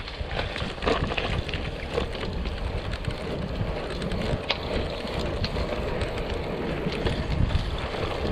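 Road bike rolling along a paved road, heard through a handlebar-mounted camera: steady tyre and road noise with a low rumble, and a few light clicks and rattles from the bike.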